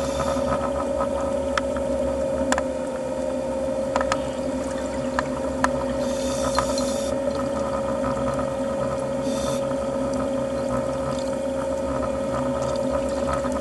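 Underwater sound: a steady hum at one pitch, typical of a boat engine heard through the water. Scattered sharp clicks, and brief hisses about six and nine seconds in.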